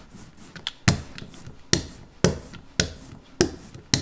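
A brayer is rolled back and forth through block-printing ink on an inking slab. It makes a sharp clack at each stroke, about six in all, roughly one every half second.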